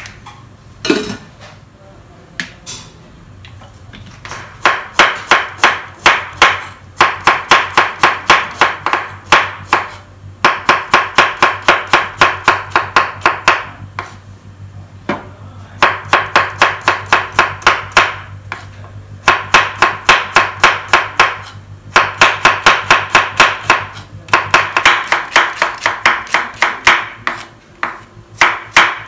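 Kitchen knife slicing shallots on a wooden cutting board: quick, even knife strokes against the board, several a second, in runs broken by short pauses. A single knock comes about a second in.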